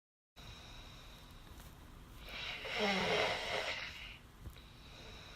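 A sleeping man snoring: one loud, rasping snore about two to three seconds in, over a faint steady background.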